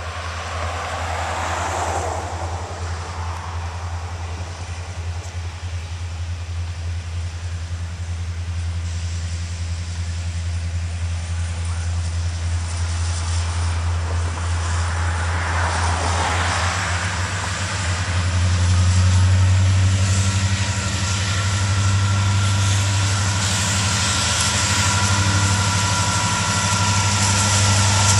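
Diesel freight locomotives approaching: a steady low engine rumble that grows steadily louder as the train nears, loudest in the last third.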